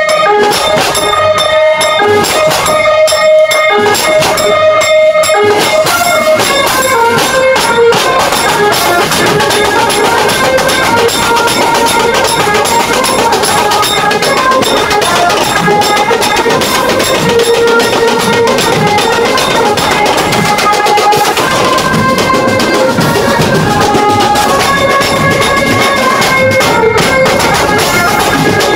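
A Mumbai-style banjo party band playing loud, with the drum kit and cymbals keeping a driving beat under a sustained, amplified melody. The beat is broken by short gaps for the first few seconds, then fills in and runs on continuously.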